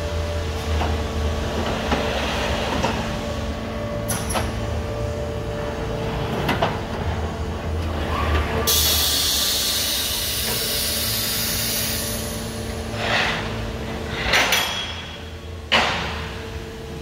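APS RPS-504 punch line for flat steel bar running, with a steady machine hum and scattered knocks and clanks. A high hiss lasts about three seconds a little past the middle, and a sharp metallic bang near the end is the loudest sound.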